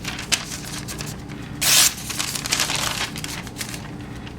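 Freshly sharpened plain carbon-steel Camillus Ka-Bar bowie blade slicing through paper: one short hissing rasp a little under two seconds in, with light paper crinkling around it.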